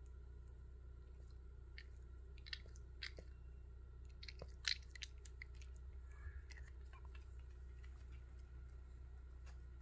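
A Pomeranian's teeth clicking a few times, then a sharp bite on a bone-shaped chew treat held in a hand, a little before halfway through.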